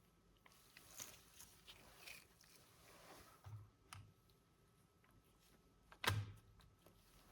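Quiet handling noises from working on a laptop: scattered light clicks and rustles, a couple of soft thuds, and one louder sharp knock about six seconds in.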